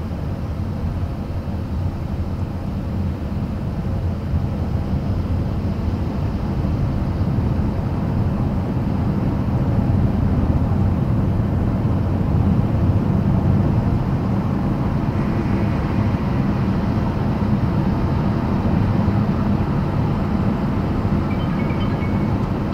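Steady cabin noise of a moving Toyota RAV4: tyre and road roar with a low drone, growing somewhat louder about halfway through.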